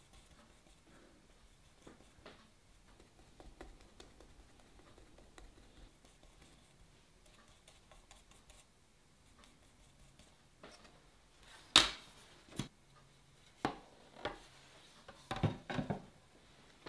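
Faint scraping of a paintbrush mixing paint on a wooden palette. Then, from about twelve seconds in, a run of sharp wooden knocks and clicks as the palette is set down on the table and the wooden box easel and its canvas panel are handled. The first knock is the loudest.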